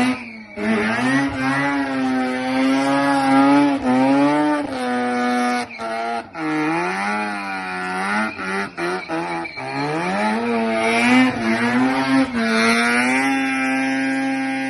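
Rotary-engined car held at high revs during a burnout, the engine note wavering and twice dropping and climbing back.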